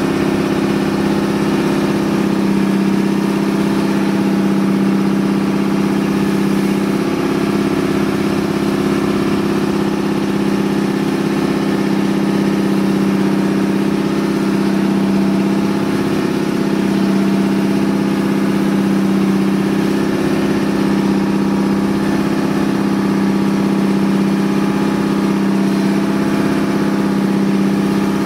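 Outrigger boat's inboard engine running steadily under way, a loud, even drone whose pitch does not change.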